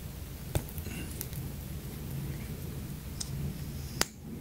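Small clicks and rustles from handling a plastic mascara tube. A sharp click about half a second in and a louder one about four seconds in, as the cap is twisted open, over a low steady hum.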